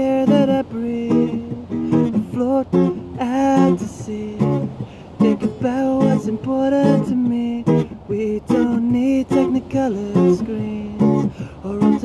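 Acoustic guitar strummed in a steady rhythm, capoed near the nut, with a man singing a melody over it.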